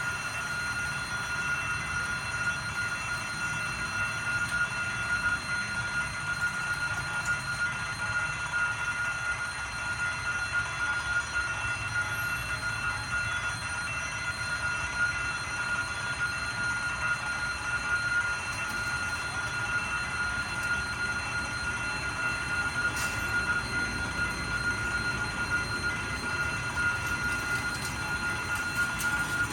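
Diesel-locomotive-hauled train on the Vietnam Railways line, a low steady rumble with a steady high-pitched tone held over it throughout.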